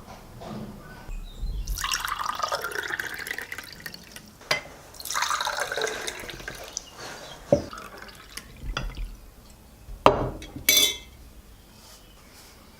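Liquid poured into a glass in two runs, then a few sharp glass clinks.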